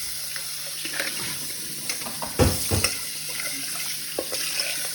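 Water running from a kitchen tap into a sink, with two sharp knocks about halfway through and a few lighter clicks.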